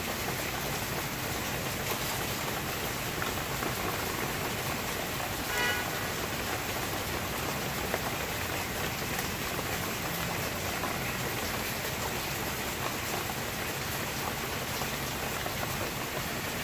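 Steady rain falling, an even hiss throughout, with a brief high pitched sound about six seconds in.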